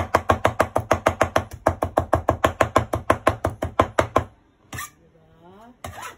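Kitchen knife chopping rapidly on a cutting board, an even run of about seven strokes a second that stops about four seconds in. A single knock and a short rising voice follow near the end.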